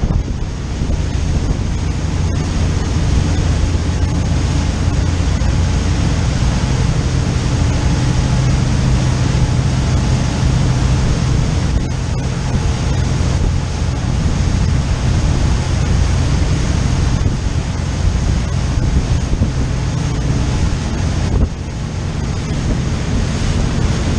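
Motor yacht running at speed: a steady low engine drone under the rush of the churning wake and wind buffeting the microphone.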